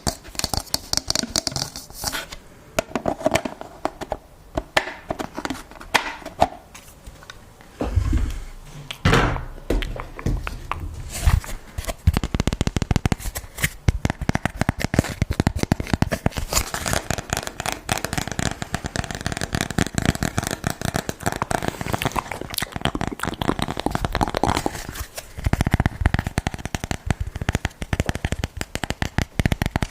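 ASMR trigger sounds close to the microphone: quick fingertip tapping and crinkly handling of objects in a dense run of clicks and rustles, with a few soft low thumps.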